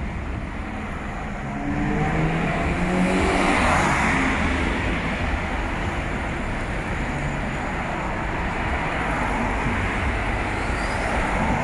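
Road traffic: a steady rumble of passing vehicles, with one engine growing louder as it passes close between about two and four seconds in.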